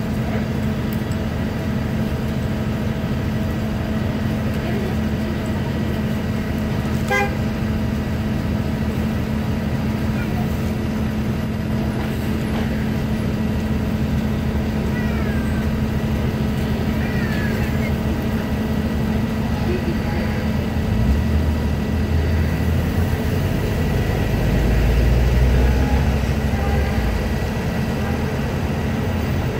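Steady city street traffic with a constant engine hum. About 21 seconds in, a CNG-powered New Flyer Xcelsior XN40 city bus comes in and pulls up, its low engine rumble swelling and loudest around 25 seconds.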